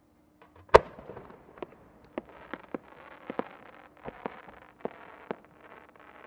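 A 10-gō firework shell with rising effects: one loud bang as it is fired, then about ten smaller sharp pops over the next four seconds as the little rising flowers attached to the shell burst during its climb.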